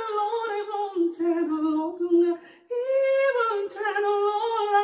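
A woman singing a cappella, with long held notes and no accompaniment, breaking off briefly about two and a half seconds in.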